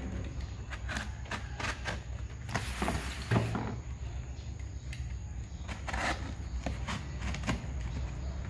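Utility knife slitting the packing tape along a cardboard box's seam: irregular scratchy crackles and scrapes of tape and cardboard, with a louder knock about three seconds in.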